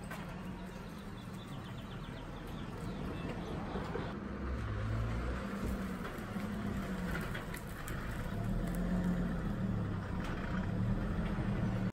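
Acura Legend's V6 engine running, its pitch wavering up and down and getting louder about four seconds in.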